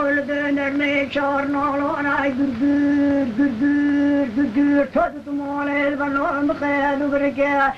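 A male voice singing a slow folk melody, holding long steady notes and bending them with wavering, ornamented turns, with a brief break about five seconds in.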